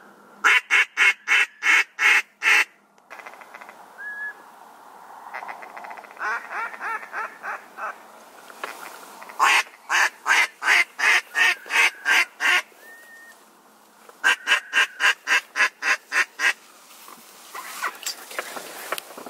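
Duck call blown in runs of loud, evenly spaced quacks, about four a second, with short single whistle notes between the runs: hunters calling to a flock of ducks in flight.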